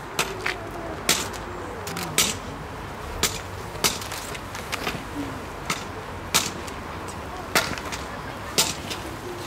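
Sharp, short clicks or taps at uneven intervals, roughly one a second, over a low murmur of a crowd.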